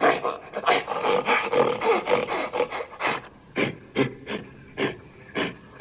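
Gorilla vocal sound effect: a fast series of short grunts that slows after about three seconds to single grunts roughly two a second.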